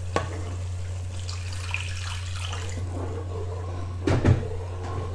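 Water poured into a hot, steaming pan of sauce, over a steady low hum. A spatula knocks against the pan about four seconds in.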